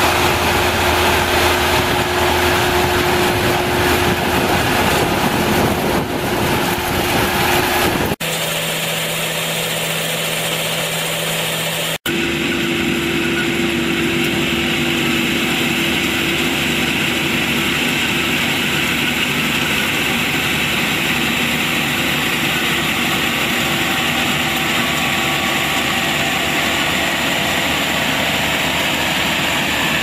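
Tracked half-feed combine harvester running while harvesting paddy: a steady engine drone with the hum of the machinery. The sound changes abruptly twice, about eight and twelve seconds in.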